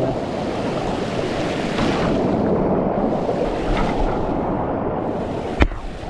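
Creek water rushing steadily over rocks in a small cascade, close by. A single sharp knock sounds near the end.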